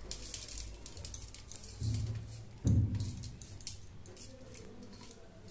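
Grated coconut and sugar being mixed by hand in a steel plate: soft rustling with small clicks and scrapes of fingers against the metal. Two brief dull low sounds come about two and three seconds in.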